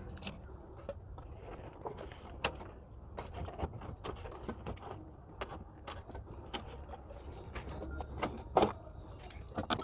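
Scattered metallic clicks, clinks and knocks as an unbolted part is worked loose and pulled out of the car's engine bay, with one louder knock near the end.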